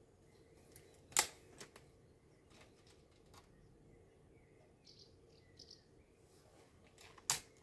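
Break-barrel air rifle being cocked and reloaded: a sharp metallic clack a little over a second in as the barrel is broken open and cocked, a few faint clicks while the breech is handled, and a second sharp clack near the end as the barrel is closed. Birds chirp faintly in the background.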